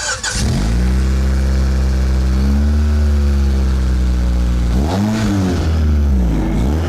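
Car engine starting up and running loudly with an exhaust leak. It idles with a slight rise in pitch, then is revved twice near the end, each rev rising and falling back quickly.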